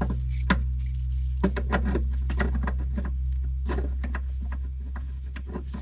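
Scattered light clicks and clinks of wrenches and other metal hand tools being handled while sizing up a brake line fitting, over a steady low hum.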